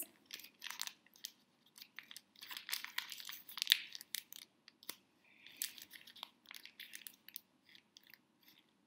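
Wrapping paper on a tiny present being torn and crinkled by fingers: faint, irregular rustles and crackles that stop shortly before the end.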